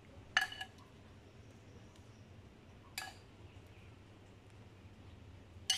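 A metal spoon clinks against a glass bowl three times, about two and a half seconds apart, each a short ringing tap, as white sauce is scooped out.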